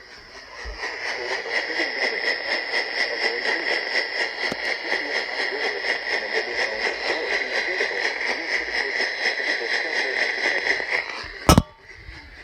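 Radio static: a rough hiss with a steady high-pitched band running through it, starting half a second in. It cuts off about a second before the end with a single loud click.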